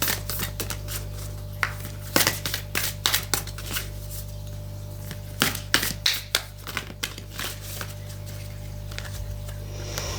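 A deck of cards being shuffled and handled by hand: irregular crisp clicks and flicks in clusters, over a steady low hum.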